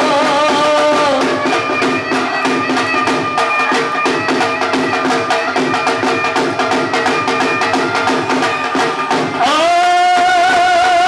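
Bhangra music: fast dhol drumming under a reedy wind-instrument melody. A held melody note drops out about a second in, and a louder, wavering wind melody comes in near the end.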